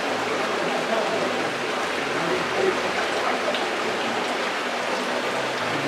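Steady rush of running water in a trout-fry rearing tank.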